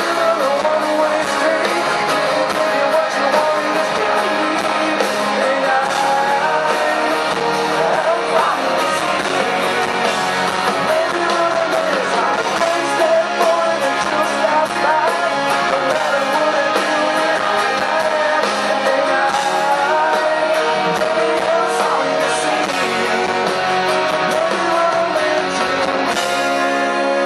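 Rock band playing live through a concert PA, with a lead singer over guitars and drums, heard from within the audience.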